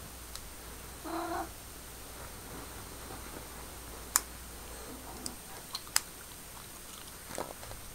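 Tortoiseshell cat giving one short meow about a second in. Two sharp clicks, the loudest sounds, come about four and six seconds in, with a few fainter ticks.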